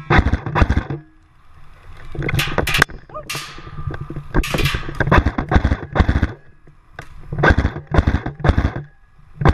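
Repeated sharp knocks and clacks in quick clusters of three or four, about three a second, with two brief hissing sweeps in the middle.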